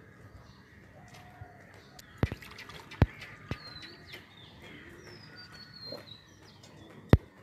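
Birds chirping, with four sharp clicks over the same stretch, the loudest near the end.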